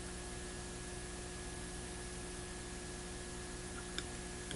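Steady electrical mains hum with a light hiss, and a faint tick about four seconds in.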